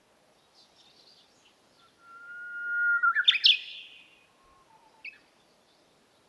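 Songbird singing: one long whistled note that swells for about a second, then breaks into a quick run of higher notes. Faint chirps come before it and a single short note near the end.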